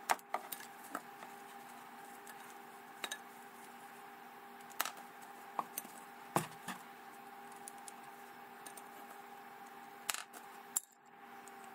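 Small plastic clicks and taps as a hand handles a plastic toy figure and loads a gummy candy onto its spring-launcher backpack, over a steady low hum.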